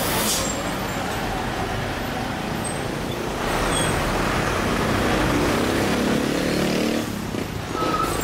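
Diesel truck engine labouring up a steep mountain climb as a box truck passes close by, mixed with traffic noise. The engine grows louder a few seconds in and falls away near the end.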